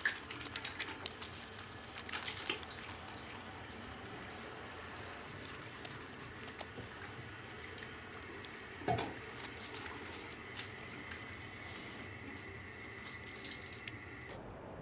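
Water running from a bathroom tap into a sink, with small splashes and clicks as a man washes his face. One louder sudden sound comes about nine seconds in.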